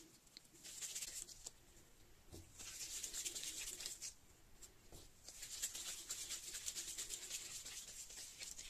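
Gloved hands rolling pieces of soft yeast dough into balls between the palms: a faint, quick rubbing and rustling of the disposable gloves, in three spells, the last the longest.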